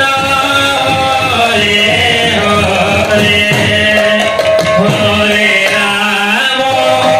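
Live kirtan music: a man singing a devotional melody into a microphone, accompanied by a two-headed barrel drum.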